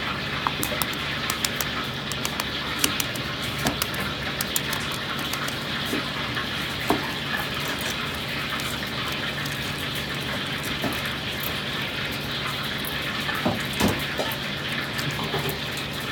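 Century egg shells cracked and peeled by hand, making scattered small crackles and clicks as shell pieces drop into a stainless steel bowl. A steady background rush with a low hum runs underneath.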